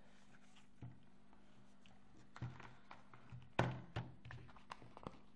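Handling noise from a Blu-ray steelbook case in its cardboard sleeve: a few scattered taps and thunks, the loudest about three and a half seconds in.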